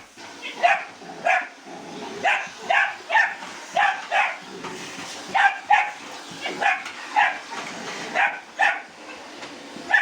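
A dog barking in a rapid string of short, sharp barks, about two a second.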